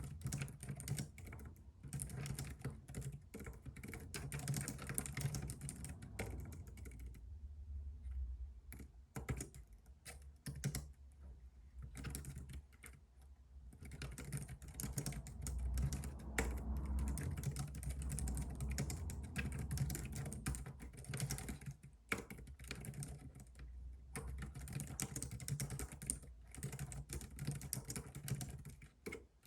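Typing on a computer keyboard: quick runs of key clicks, thinning to scattered single keystrokes for several seconds in the middle before the fast typing resumes. A low rumble sounds underneath.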